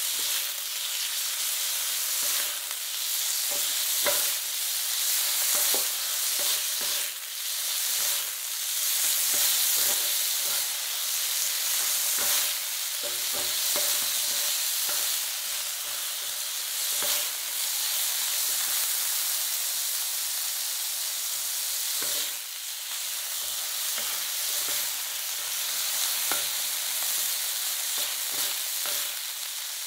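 Thin-sliced beef and garlic cloves sizzling on a hot flat griddle plate, with frequent clicks and scrapes of two spatulas turning and tossing the meat against the plate.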